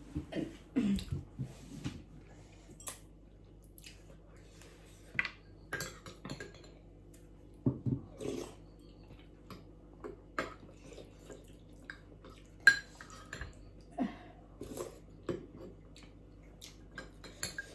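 Eating utensils clinking and scraping against dishes during a meal, in scattered, irregular clicks.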